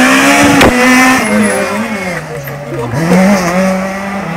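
Škoda Fabia S2000 rally car's engine at high revs as it slides past at stage speed, its pitch rising and wavering, with a sharp crack under a second in and a drop and climb again at a gear change about three seconds in.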